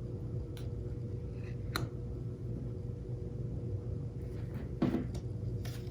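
Steady low hum and rumble with a faint steady tone above it, and a few soft clicks scattered through.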